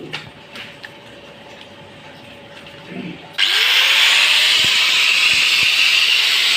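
Light clicks, then about three and a half seconds in a power tool starts: its motor tone rises as it spins up and it runs on with a loud, steady hiss.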